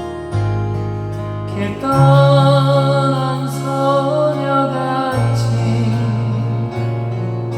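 Instrumental music: sustained bass notes that change every couple of seconds under a melody line with vibrato.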